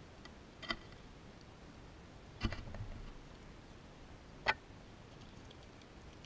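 A fox squirrel feeding right at the microphone: three sharp clicks about two seconds apart, the middle one with a low bump and a moment of crunching after it.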